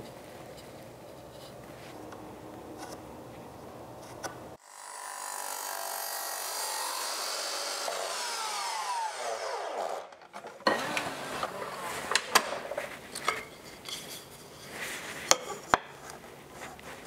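Makita sliding compound miter saw starting up about four seconds in and cutting small cove moulding, then spinning down with a falling whine. Afterwards come sharp knocks and clicks as the moulding is handled on the saw table.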